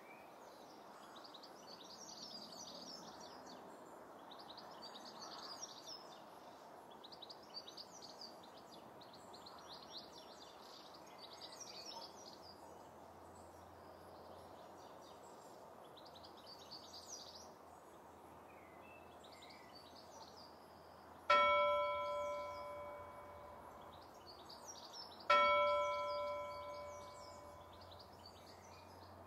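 Birds chirping in short repeated phrases, then a bell struck twice about four seconds apart, each strike ringing out clearly and fading away over a few seconds.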